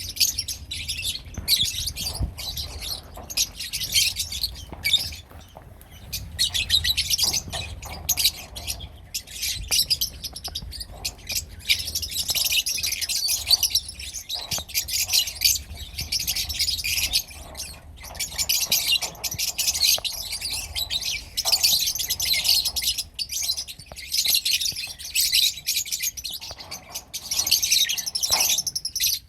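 A group of lovebirds (Agapornis) chattering with dense, continuous high-pitched chirps, many calls overlapping with no pause.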